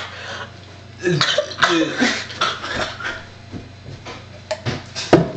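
A person coughing and clearing their throat in several short bursts, reacting to the nasty taste of the deodorant just eaten. A few sharp clicks near the end.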